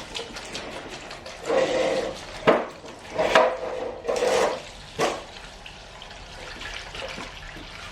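Liquid sloshing and splashing in a container in three short bursts, with two sharp metal clinks about two and a half and five seconds in: rusty parts being put to soak in Evapo-Rust rust remover.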